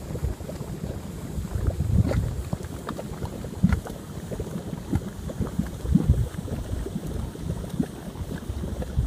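Geothermal mud pots bubbling: irregular low gurgles and plops of gas bursting through thick mud, with a few louder plops, against wind on the microphone.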